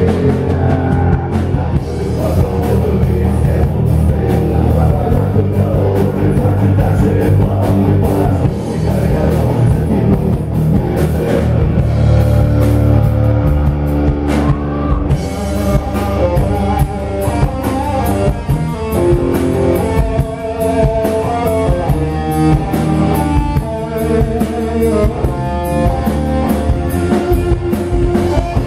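Rock band playing a song on drum kit and electric guitar, with a guitar melody line standing out in the second half.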